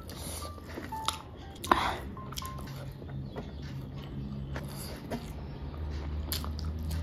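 Close-up eating sounds: chewing of rice and pork curry eaten by hand, with fingers working the rice on a metal plate and several sharp clicks, the loudest a little under two seconds in.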